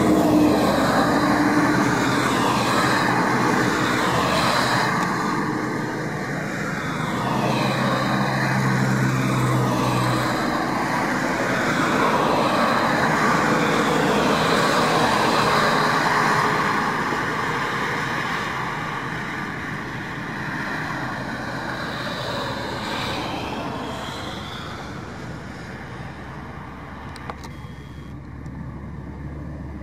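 Highway traffic: motor vehicles passing at speed, loud for the first half and then fading steadily as they move away over the last ten seconds.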